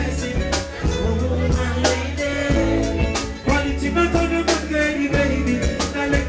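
Live reggae band playing with a vocalist at the microphone: a heavy bass line, drum kit hits and the voice over the top.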